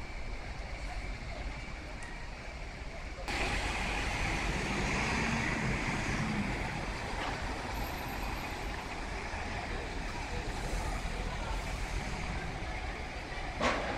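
Street traffic noise with wind buffeting the microphone; it gets louder about three seconds in, and there is a single sharp knock near the end.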